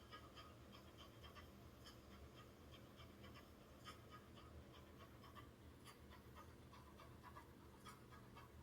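Near silence: room tone with a low hum and faint, irregular small clicks.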